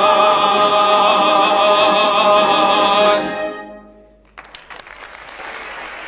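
A soprano and a male voice with a wind band hold the last note of a hymn with vibrato, ending about three seconds in. After a short lull, applause starts and carries on.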